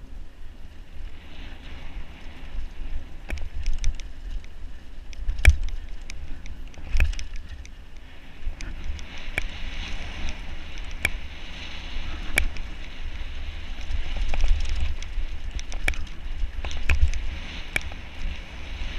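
Mountain bike riding fast down a loose, rocky dirt trail: wind rumbling on the camera microphone and tyres hissing over gravel, with sharp clicks and knocks as the bike rattles over bumps. The gravel hiss grows louder about halfway through.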